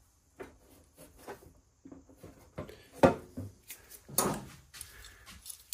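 Parts being handled and set in place: a string of irregular knocks, clunks and rubbing, the loudest knock about three seconds in and another clunk about a second later.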